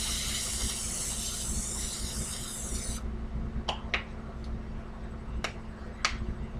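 Aerosol vegetable-oil cooking spray hissing into a hot skillet for about three seconds, cutting off sharply. A few sharp pops follow as the sprayed oil bubbles in the pan.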